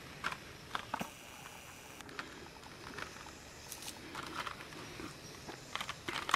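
Faint, irregular small clicks and rattles of AA batteries and a plastic battery tray being handled while a trail camera's batteries are changed.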